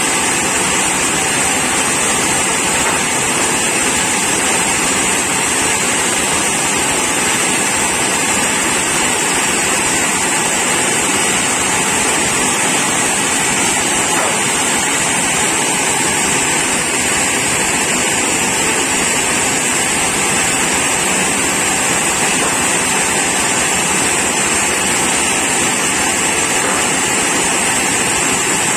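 Sawmill saw and its drive running with a steady, loud mechanical noise and a high whine.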